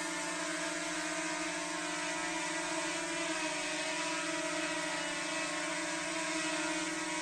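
DJI Mini 2 quadcopter's four motors and propellers running at a steady speed, giving an even whirring whine with several steady tones over a hiss.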